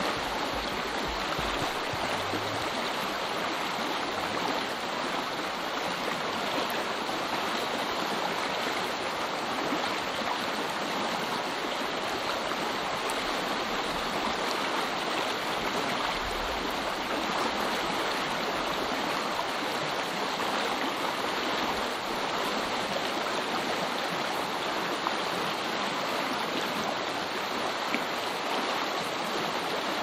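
Small creek rushing and splashing steadily.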